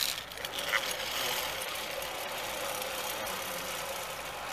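Zip-line trolley pulleys rolling along a steel cable as the rider pushes off, a steady whir with a brief squeak about a second in.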